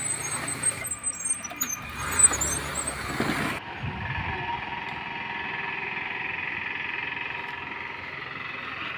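Outdoor road noise from motor traffic with scattered knocks and high chirps, then, after a cut about three and a half seconds in, a steadier vehicle hum.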